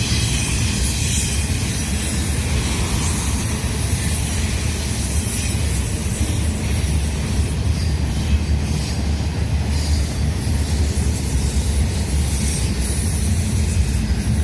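Intermodal freight train running steadily past: a continuous noise of rolling cars and wheels on the rails.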